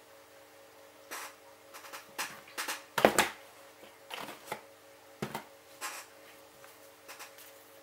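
Hands working black fondant on a tabletop: scattered light knocks and rustles while the fondant is dusted with CMC powder and kneaded, the loudest a knock about three seconds in. A faint steady hum lies underneath.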